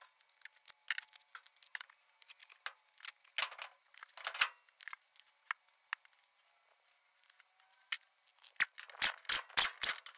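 Light metallic clicks and clinks of a steel truck wheel being hung on its studs and the lug nuts fitted by hand. The clicks are scattered at first and come faster in the last second and a half.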